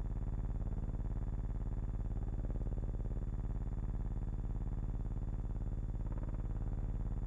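Steady low electrical buzz: a mains-type hum with many overtones, unchanging throughout, with no sound of the vehicles. It is the kind of hum left on the soundtrack of a transfer of silent film.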